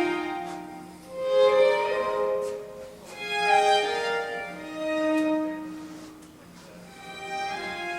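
Recorded violin music played back over a high-end hi-fi system: long bowed notes in phrases that swell and fade every second or two.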